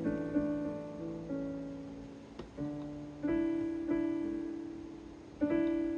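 Casio CT-S1 portable keyboard played with a piano voice: slow held chords struck about once a second, each ringing on and fading before the next.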